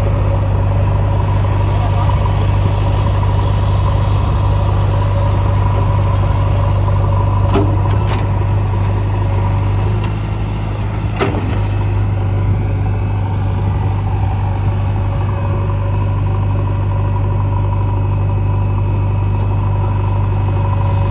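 Heavy diesel engines of a backhoe loader and tractor running steadily with a strong low hum, with a few sharp knocks about 7.5, 8 and 11 seconds in.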